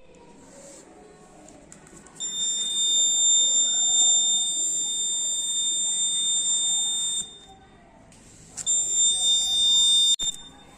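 The electronic buzzer of an Arduino anti-theft alarm sounds a steady high-pitched tone for about five seconds, stops, then sounds again for about a second and a half near the end. It goes off when the door sensor is opened.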